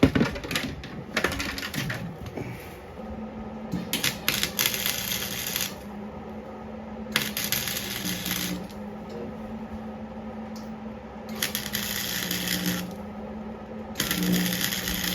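Electric welder crackling in four short bursts of about a second and a half each, welding patches onto the snowmobile's thin, rusted steel frame. A steady low hum runs underneath from about three seconds in, and there are a few clatters near the start.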